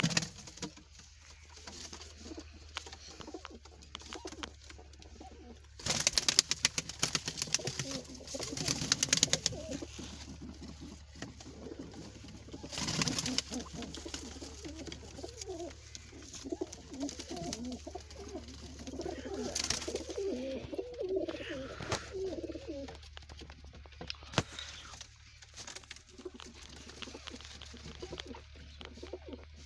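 Domestic pigeons cooing, broken by loud flurries of wing-flapping and scuffling as they fight, the biggest from about six to ten seconds in and a shorter one a few seconds later.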